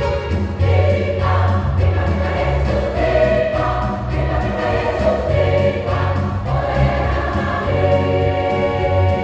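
Church choir singing a gospel song over a low instrumental accompaniment, the voices holding long chords that change every second or two.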